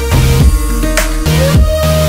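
Instrumental background music with a steady beat, about two drum hits a second, over a bass line and held notes.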